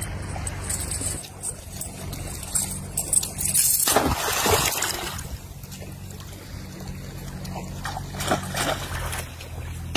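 A thrown bait on a chain line hits muddy water with a big splash about four seconds in, then smaller splashing near the end, over a steady low hum.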